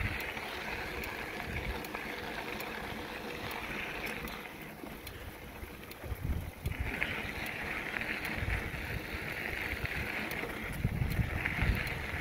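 Wind buffeting the microphone of a moving bicycle, over a steady hiss that drops away for about two seconds midway and then comes back.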